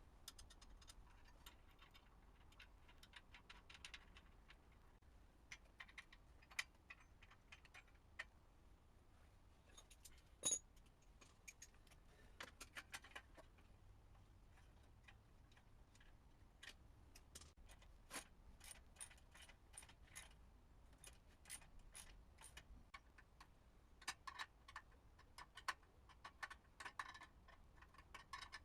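Faint, scattered light clicks and metallic clinks of hand tools being worked on a motorcycle exhaust, with one sharper clink about ten seconds in and a quicker run of ticks near the end.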